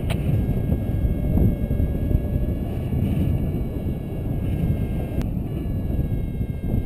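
Wind buffeting the microphone of a paraglider pilot's action camera in flight: a steady low rumble, with a sharp click about five seconds in.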